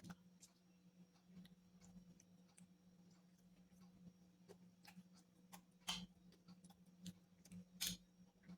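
Close-miked eating sounds: faint, scattered wet clicks of chewing, with two louder crunchy clicks about six and eight seconds in, over a steady low hum.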